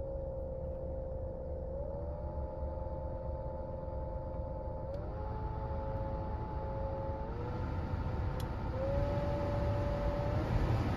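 Fourth-generation Honda CR-V's heater blower fan running with a humming tone over a low rumble. The pitch steps up several times and the sound grows louder as the fan speed is raised. The hum is the fault that leads the owner to replace the blower fan.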